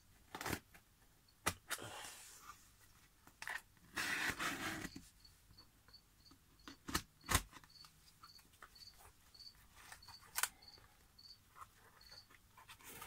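Scissors cutting the packing tape on a cardboard box: sharp snips and clicks of the blades, with a longer rasping cut about four seconds in. A faint high chirp repeats about three times a second through the second half.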